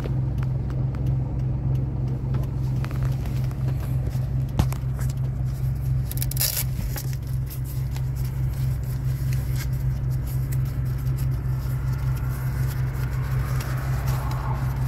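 Car engine idling with a steady low hum, heard from inside the cabin, with scattered clicks and a brief rustle from a handheld phone.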